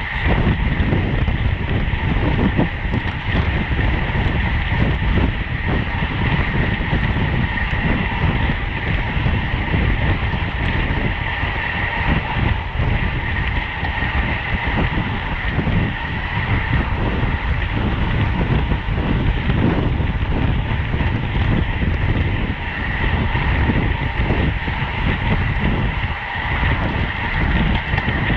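Wind buffeting the microphone of a bicycle-mounted camera at race speed, a steady rushing rumble with a constant whine running underneath.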